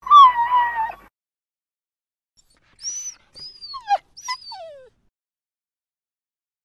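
A dog whining: one drawn-out whine that sags slightly in pitch in the first second, then after a pause a few short, high squeaks that slide sharply down in pitch.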